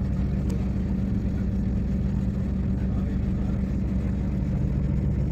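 Purse-seine fishing boat's engine running steadily with a low, even hum.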